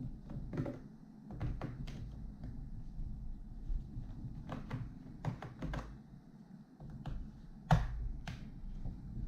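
Scattered small clicks and taps of hands and a screwdriver working on a laptop's underside and its screws, with one louder knock about eight seconds in.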